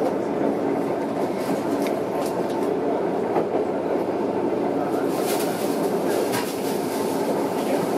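Tokyo Metro 06 series electric train running, heard from inside the car as it comes into a station: a steady rumble of wheels on rail with a faint humming motor tone. A run of sharp clacks from the wheels comes about five to six and a half seconds in.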